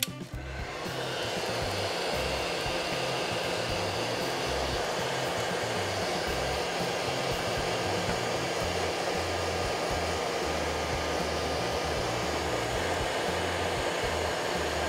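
Heat gun blowing hot air onto heat-shrink tubing on a cable splice. It comes on at the start, builds up over about a second, then runs as a steady whoosh.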